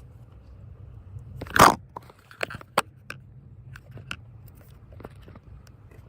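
Close-up handling noise: a short, loud crunching rustle about a second and a half in, followed by a scatter of small clicks and crackles, as tape and gauze are worked by hand.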